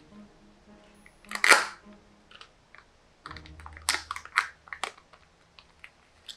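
Hard plastic Kinder Joy toy capsule being handled and prised open. A sharp crackle comes about a second and a half in, then a quick run of clicks and snaps near the middle as the halves come apart.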